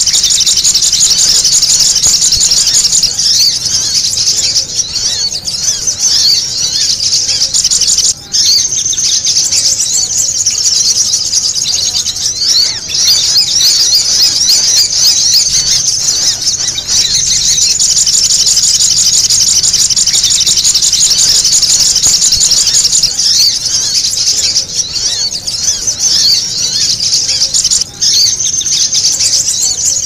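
Olive-backed sunbirds (sogok ontong) calling in a busy bird-lure recording: a dense, unbroken chorus of rapid, high-pitched chirps and trills from many birds at once, played to draw wild sunbirds in.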